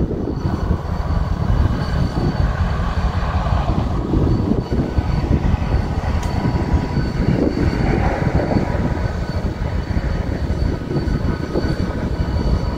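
Stationary CSX diesel locomotive idling: a deep, uneven rumble with a thin, steady whine above it.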